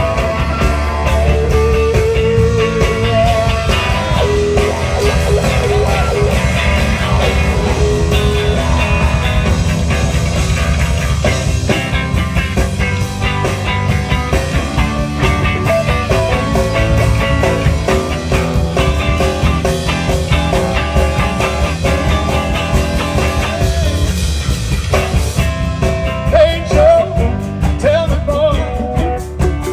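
Live blues-rock band playing: electric guitar lines over a steady drum-and-bass groove.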